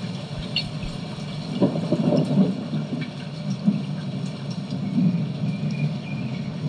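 Thunderstorm sound effect: steady rain with rolling thunder, the rumble swelling about two seconds in and again near five seconds.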